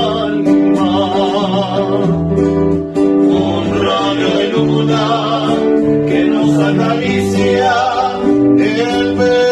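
A trio singing a song with acoustic guitar accompaniment, rehearsing.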